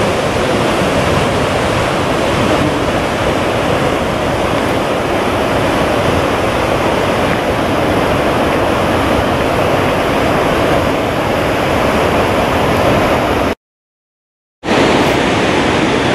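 Steady rush of the Goðafoss waterfall and its whitewater river. About three-quarters of the way in the sound cuts out for about a second. Then the steady rush of the Gullfoss waterfall comes in.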